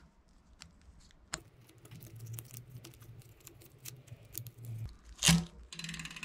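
Light clicks and rattles of a bicycle chain being handled and fed through a rear derailleur's pulley wheels, with one louder sharp noise about five seconds in and a quick run of ticks near the end as the chain is pulled through.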